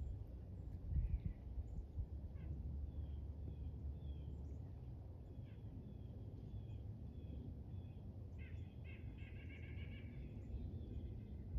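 Wild songbirds chirping and calling, with a rapid trill of quickly repeated notes about two-thirds of the way through, over a low steady rumble; a low thump about a second in is the loudest sound.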